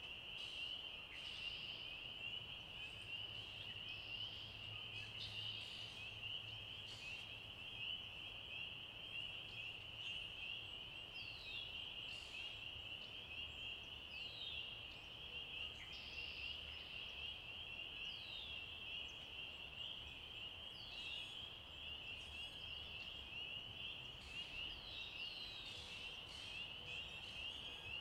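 Dense chorus of spring peepers, a steady high-pitched wall of overlapping peeps, with scattered short downward-sliding calls above it and a faint low rumble underneath.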